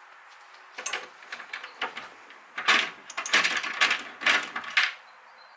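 A run of clattering and scraping noises from metal parts and tools being handled and fitted, sparse at first and loudest and busiest in the second half.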